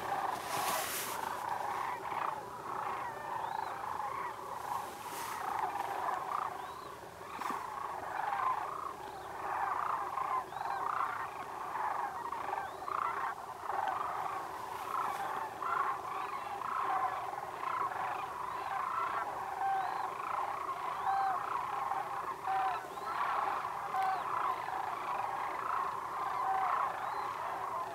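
A large flock of sandhill cranes calling, many short calls overlapping without a break into a dense chorus.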